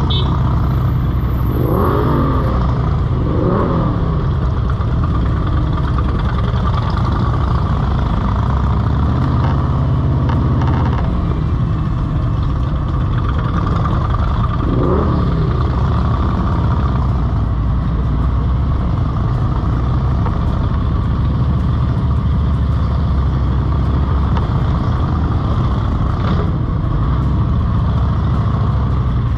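Harley-Davidson V-twin motorcycles at slow riding speed, a steady low rumble, with a few short revs rising and falling.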